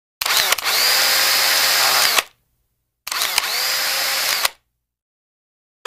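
Sound effect of an animated channel-logo intro: two loud whirring bursts, about two seconds and a second and a half long, each sweeping quickly up in pitch and then holding steady before cutting off.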